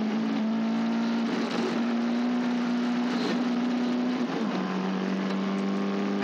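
Caterham race car engine running hard. Its steady pitch creeps up, then drops sharply about four seconds in, as at a gear change, and holds steady at the lower pitch.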